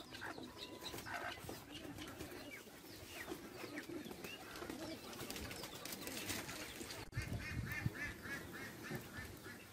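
Poultry calling faintly in a yard: scattered small calls from chickens and ducks, then a quick run of about ten short repeated calls over two seconds near the end.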